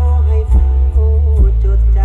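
Loud music with a heavy, continuous bass and a bending melody line, played over an outdoor-cinema unit's PA sound system during its sound test.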